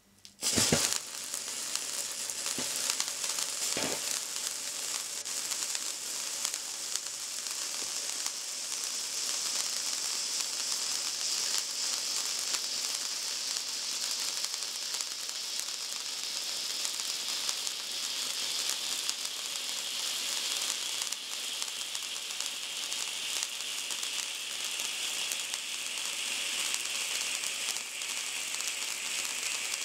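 Silver 'Traumsterne' table fountains catching with a sudden burst about half a second in, then spraying sparks with a steady sizzling hiss and crackle, with a couple of sharp pops in the first few seconds. The hiss slowly lowers in pitch in the second half.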